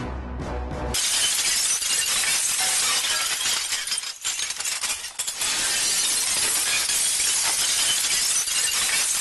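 Music with a bass line stops about a second in and gives way to a long, loud glass-shattering crash: a television screen smashed by a sledgehammer, with brief dips around four and five seconds in.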